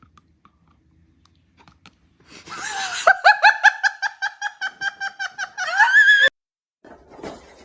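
High-pitched laughter: a rapid run of short ha-ha pulses, ending in a rising squeal and cut off suddenly.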